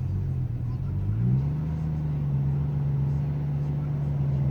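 A BMW 335i's turbocharged straight-six idles roughly with an uneven, pulsing beat, the rough idle whose cause the owner is trying to find. About a second in, the engine note rises a little and then holds steadier.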